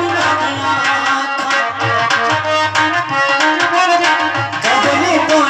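Live folk devotional music: a dholak barrel drum keeps a rhythm under a wavering melody line from a sustained melodic instrument.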